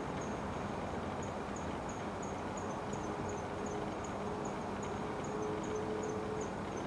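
A night insect chirping in a regular high pulse, about three chirps a second, which stops shortly before the end. Underneath is a steady background rush with a faint low hum that comes and goes.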